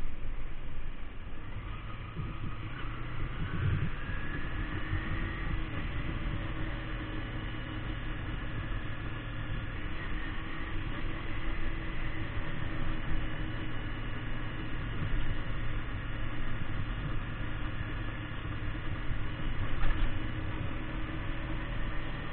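Kawasaki Ninja 250 motorcycle engine running while riding, its pitch rising as it accelerates a few seconds in and then holding steady, over a low rushing noise.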